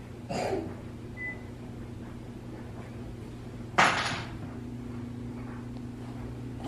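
Two knocks over a steady low hum: a softer one in the first half-second and a loud, sharp one about four seconds in.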